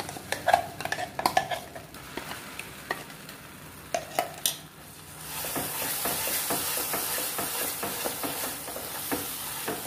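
A spoon knocks and scrapes ground onion-tomato paste out of a steel mixer jar into a hot kadai. About halfway through, the paste sizzles steadily in the butter as a wooden spoon stirs it.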